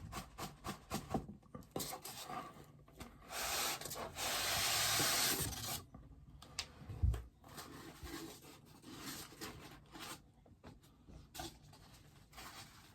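Cardboard packaging of a boxed bobblehead being handled: small taps and rustles, a longer scraping rub about three and a half to six seconds in, and a low thump about seven seconds in.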